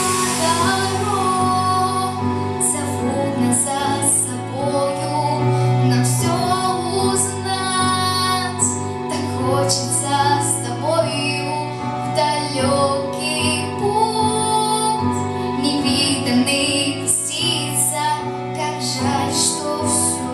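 A female voice singing a song over instrumental backing.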